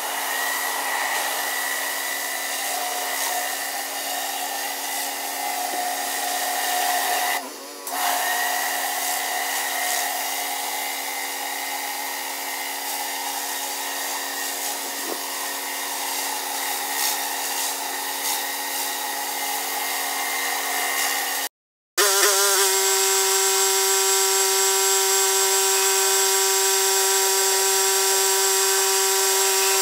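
Pressure washer running steadily, its high-pressure spray hissing on concrete, with a steady held whine over the hiss. It dips briefly about a quarter of the way in and breaks off for a moment about three-quarters through, then comes back as a steadier, more tonal run as a spinning surface cleaner is pushed over the driveway.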